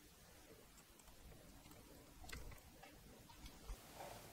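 Near silence, with a couple of faint clicks a little past the middle and a soft bump near the end as wires and printer parts are handled.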